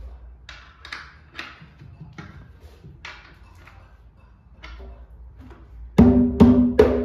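A small 60 cm atabaque with a goatskin head is tapped lightly on the head several times to check its tuning. About six seconds in, firm hand strikes follow in quick succession, each ringing with a clear pitch.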